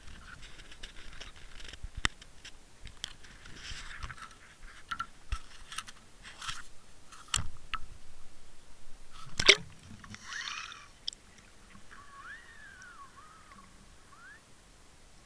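Handling noise of a camera on a fishing line being lowered over a boat's stern: clicks, knocks and scrapes, with a sharp knock about nine and a half seconds in, then a brief hiss of water as the camera goes under. After that it is quieter, with a few faint squeaky glides.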